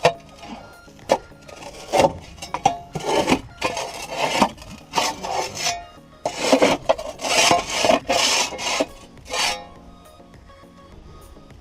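Packed dirt being scraped and pried out of a Kobelco SK150 excavator's track undercarriage, in irregular rasping strokes with a few sharp knocks. The scraping stops near the end.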